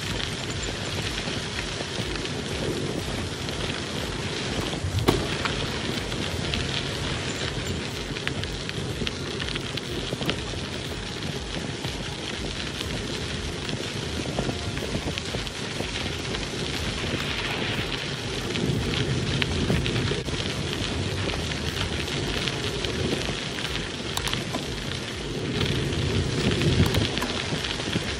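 Bicycle tyres rolling and crunching steadily over a fine-gravel trail, with a single sharp knock about five seconds in.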